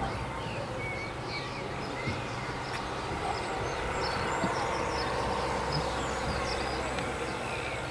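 Birds chirping in short scattered calls over a steady low hum.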